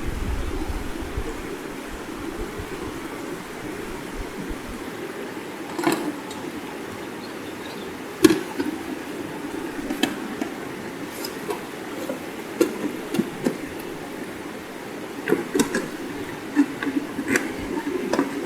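Scattered clicks and knocks of a portable sluice box's sections being handled and fitted together, several in quick succession near the end, over a steady low rushing background.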